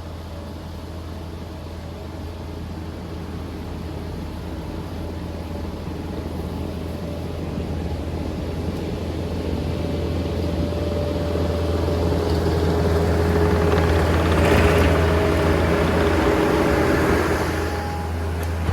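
Case 445 skid steer's diesel engine running, growing steadily louder over about fifteen seconds, then easing off shortly before the end.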